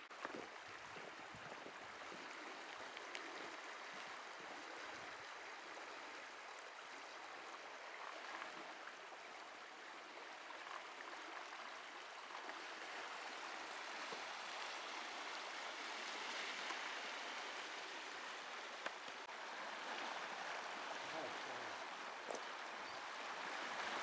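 A fast-flowing river running high with winter water, heard from above as a steady, even rush of water that swells slightly in the middle and near the end.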